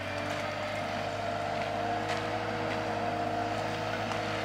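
Compact wheel loader's engine running steadily with a held, even whine over its hum while the forks carry a load.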